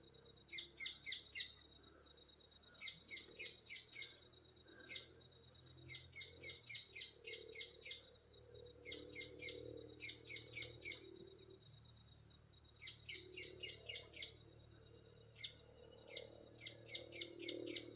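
A bird chirping in quick runs of five to eight short, sharp notes, a run every second or two, over a thin steady high tone.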